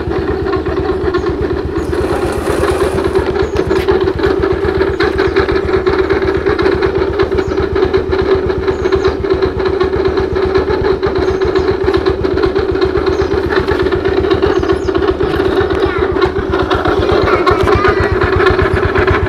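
Yamaha Mio Sporty scooter's single-cylinder four-stroke engine idling steadily, with the rough noise from the CVT that the mechanic puts down to the kick-starter pin rubbing against the pulley shaft.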